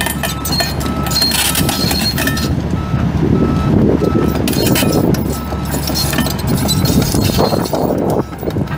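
Komatsu PC228USLC-3 excavator's six-cylinder turbo diesel running, with its motion alarm beeping a little under twice a second, the sign that the machine is moving. The beeping stops about two-thirds in, and metallic clanking follows.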